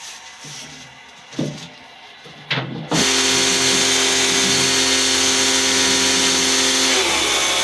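Electric pressure washer switching on about three seconds in and running steadily, its motor hum under a loud hiss of water spray, as used to wash the aircon coils. Near the end the motor's pitch sags briefly, then recovers.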